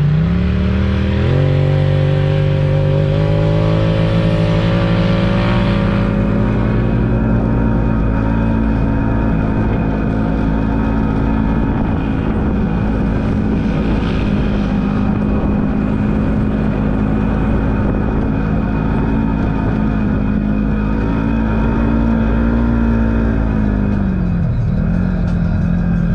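Polaris General XP4 side-by-side's twin-cylinder engine under way on a dirt trail. It revs up at the start, then runs at a steady speed, with a short dip in revs about three-quarters of the way through before picking up again, over steady tyre and trail noise.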